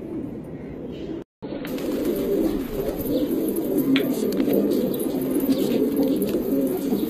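Many domestic pigeons cooing together, a dense chorus of overlapping low coos. The sound cuts out for a moment just over a second in, then returns louder.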